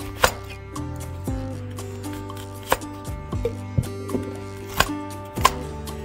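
Knife chopping on a cutting board: sharp, irregular knocks about a second apart, over background music.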